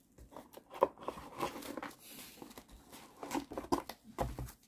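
A stack of Pokémon trading cards being picked up and handled by hand: irregular rustling and light clicking of card edges against each other, with a sharper tap a little under a second in.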